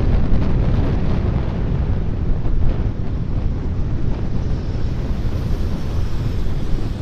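Wind buffeting the microphone of a moving vehicle, over a steady low rumble of road noise.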